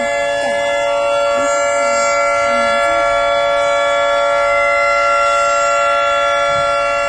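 American Signal 3T22 three-tone tornado siren sounding at full speed during its monthly test: a loud, steady chord of several held tones, without rising or falling pitch.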